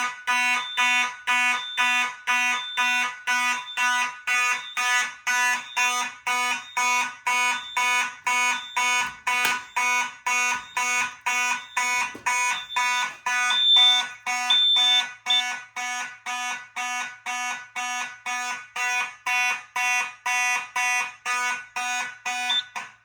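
Simplex fire alarm horns (a 4903-9101 horn/strobe and 9838 combo) sounding in march time, about two buzzing pulses a second. The sound cuts off suddenly near the end.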